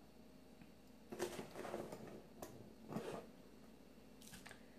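A few faint scrapes and soft knocks of a metal measuring spoon scooping packed brown sugar from a plastic tub and tipping it into a plastic mixing bowl, with one sharp little tap about two and a half seconds in.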